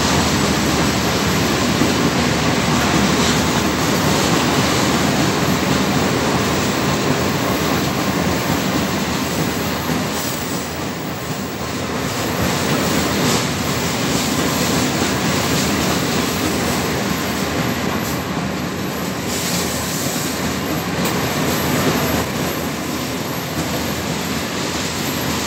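Loaded iron-ore gondola wagons of a long freight train rolling past steadily, their steel wheels running on the rails in a continuous rumble that eases slightly about halfway through.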